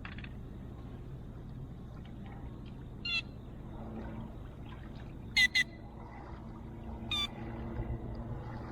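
Four short, sharp bird calls over a steady background of low noise. The loudest are two calls in quick succession about halfway through; the others come a couple of seconds before and after them.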